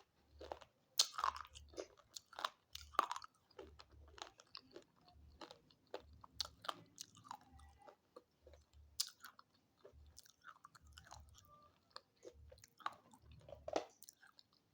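A person biting and chewing brittle chalky pieces close to the microphone: sharp, irregular crunches, several a second in bursts, with softer grinding chews between them.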